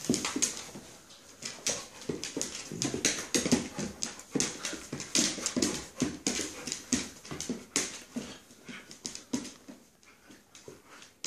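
Alaskan malamute puppy spinning after its tail on a hardwood floor: quick clicking and scrabbling of claws on the wood, mixed with short vocal noises from the dog. It thins out and quietens near the end.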